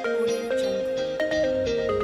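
Background music: a gentle melody of single plucked or struck notes, each ringing out briefly before the next.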